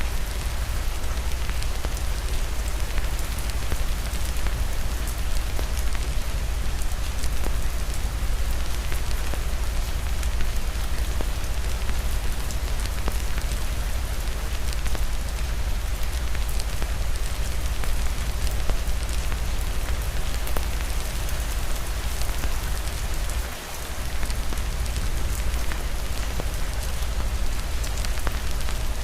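Steady heavy rain with a deep low rumble, mixed with the scattered crackle and pops of a wood fire in a fireplace. The level dips briefly a little over three-quarters of the way through.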